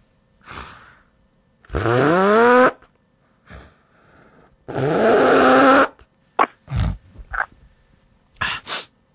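A man blowing his nose hard into a paper tissue twice, each blow about a second long, with a honk that rises in pitch through a loud rush of air. Several shorter, softer noises follow.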